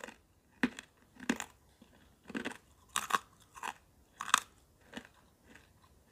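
Someone biting and chewing crisp cardamom sugar biscuit snacks: a string of irregular sharp crunches about every half second, dying away near the end.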